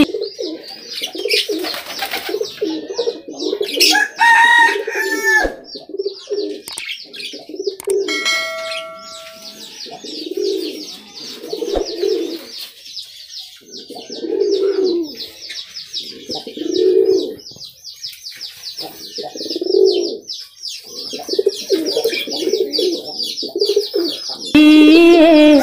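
Domestic pigeons cooing, one low coo every two to three seconds, over a steady high chatter of other birds, with a few other bird calls in the first few seconds.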